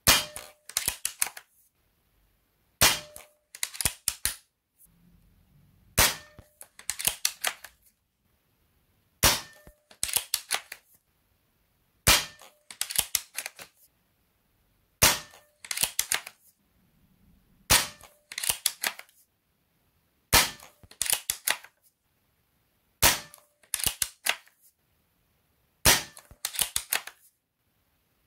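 A .22 Diana Mauser K98 pre-charged pneumatic air rifle firing ten shots at an even pace, about one every three seconds. Each sharp shot is followed within a second by a short rattle of clicks as the bolt is worked to chamber the next pellet from the magazine.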